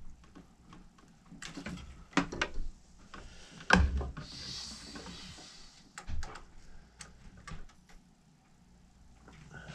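Scattered clicks and knocks of hand handling at the workbench, the scroll saw not running. A loud thump about four seconds in is followed by about a second of cloth rustling close to the microphone as a sleeve brushes past.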